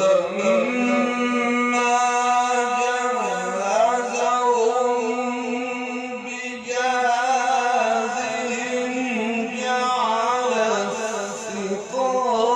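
A male voice in melodic Quran recitation, holding long drawn-out notes with wavering ornaments. It breaks off briefly about six and a half seconds in and again near the end.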